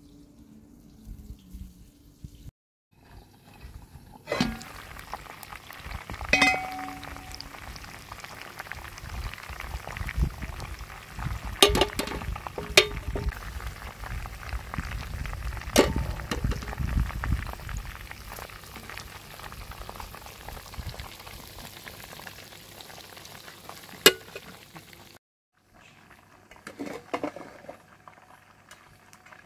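Chicken pieces frying in hot oil in a pan, a steady sizzle, with several sharp clicks of metal tongs against the pan as the pieces are turned.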